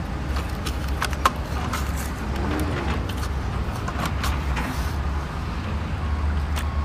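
Plastic Bruder CAT toy excavator worked by hand in gravelly soil: scattered clicks and scrapes from its arm, bucket and tracks, with one sharper click a little over a second in, over a steady low rumble.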